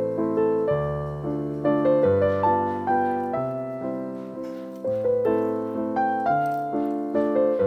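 Background piano music: a melody of struck notes, each fading after it is played, over bass notes that change about every second.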